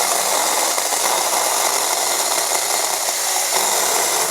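A 4-inch mini electric chainsaw running steadily under load as it cuts through a tree branch, its motor and chain making a dense, even buzzing noise.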